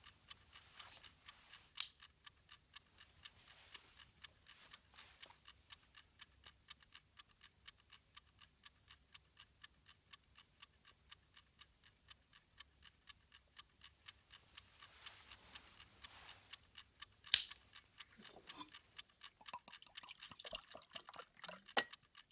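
Bedside wind-up alarm clock ticking with quick, even ticks. About seventeen seconds in comes a single sharp click, the loudest sound, and near the end there are light rustles and clinks.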